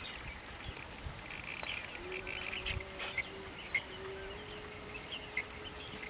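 Scattered short, high calls from a flock of wild ducks on open water, over a faint steady low hum.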